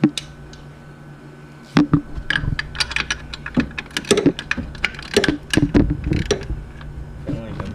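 Ratchet wrench clicking in quick, irregular runs as it turns a bolt to fasten a new water pump to the engine. A sharp knock comes right at the start; the clicking starts about two seconds in and stops near the end.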